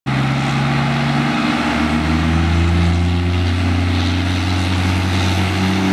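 Two Cummins turbo-diesel pickups, a 2005 Dodge with compound turbos and a 1995 12-valve with a big single turbo, revving in place side by side before a launch. The engine note is a loud, steady drone that steps up slightly about a second in, and one truck is blowing black smoke.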